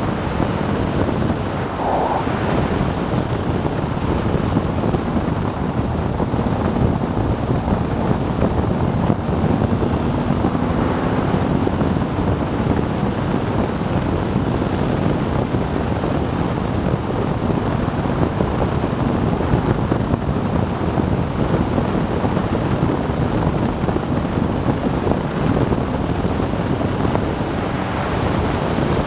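Steady wind rush buffeting the microphone of a BMW R 1200 GS Adventure motorcycle ridden at about 105–125 km/h. The boxer-twin engine's drone is faint beneath the wind.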